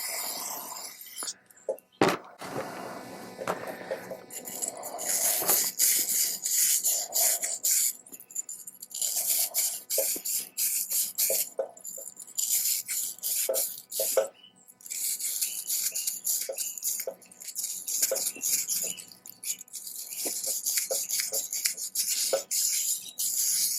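Repeated short hissing sprays with small clicks and rattles of metal parts as a small-engine carburetor is cleaned.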